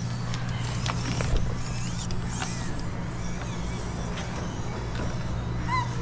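Small RC rock crawler working over rock: scattered creaks, clicks and scrapes, with a couple of brief squeaks, over a steady low hum.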